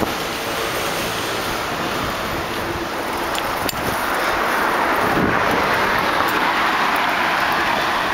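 Wind rushing over the microphone of a camera riding on a moving bicycle, mixed with street traffic noise. The rush grows louder about halfway through, with a few faint clicks over it.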